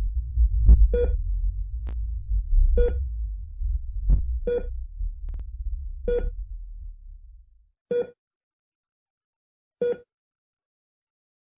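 Heart-monitor beeps sound about every two seconds over a low, throbbing heartbeat rumble. The heartbeat fades out about two-thirds of the way through, leaving only the beeps.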